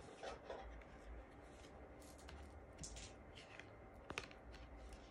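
Near silence, with faint soft taps and rustles of tarot cards being handled, and a slightly sharper click about four seconds in.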